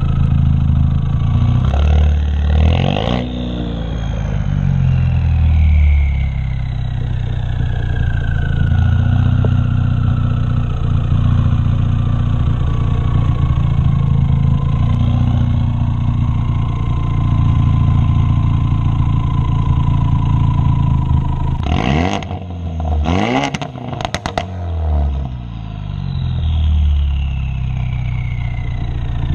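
Exhaust of a 2016 Ford Focus RS's turbocharged 2.3-litre four-cylinder, running with a catless downpipe and no muffler: a loud, deep drone while driving, with pitch slowly falling as it slows. A little past twenty seconds in come a few quick revs with sharp pops from the burble tune.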